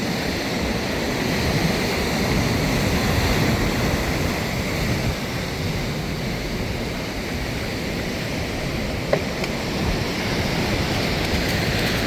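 Ocean surf washing steadily up the beach, with wind rumbling on the microphone. A single short click about nine seconds in.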